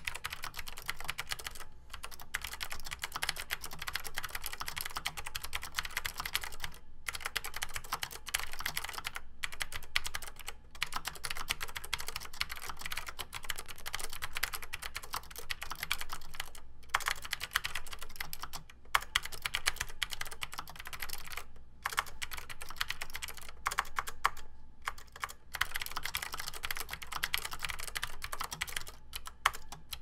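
Fast, continuous touch-typing on an NEC APC 102 keyboard with NEC Blue Oval mechanical switches: a rapid stream of clicky keystrokes, similar to Cherry MX Blue switches, broken by brief pauses several times.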